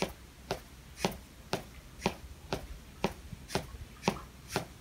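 Sharp taps at a steady pace, about two a second.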